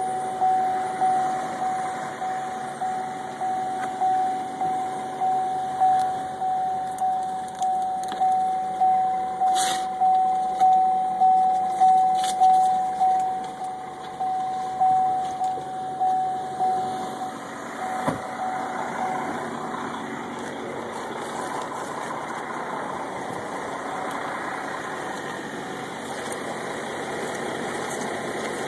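Car warning chime in the Chevrolet Volt's cabin, one tone repeating about one and a half times a second. It stops a little past halfway through, leaving a steady engine-like hum.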